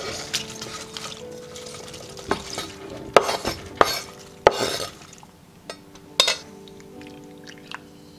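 Cabbage being scraped off a wooden cutting board with a kitchen knife into a stainless steel pot: the leaves rustle, and the blade gives several sharp knocks against the board and pot. Soft background music plays underneath.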